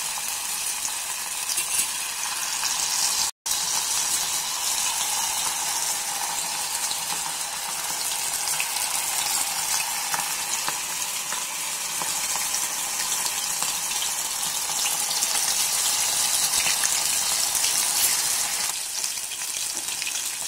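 Batter-coated prawns deep-frying in hot oil, a steady bubbling sizzle as pieces are dropped in one at a time. A split-second dropout to silence comes a little over three seconds in.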